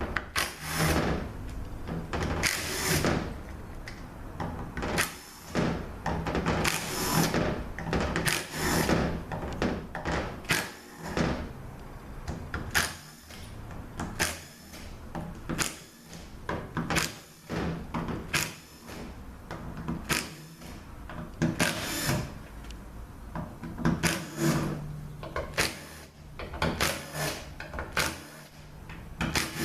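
Bolts being taken out of a Ford 6R80 transmission valve body: a run of irregular clicks, taps and scrapes of tools and small metal parts.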